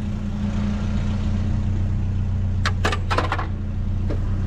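Vehicle engine running at a steady low hum, with a few short clicks or rattles in the second half.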